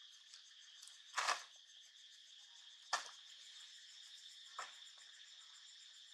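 Short crackles of a thin plastic bag being pawed and pulled by a young macaque, the loudest about a second in and near three seconds, over a steady high insect chorus.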